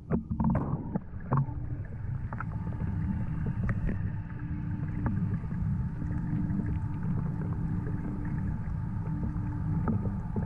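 Underwater ambience inside a large aquarium tank: a steady low rumble with a constant hum, and a few knocks and clicks in the first second and a half.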